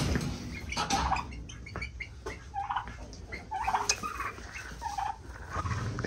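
Domestic poultry calling in a string of short calls, with a few light knocks in the first couple of seconds.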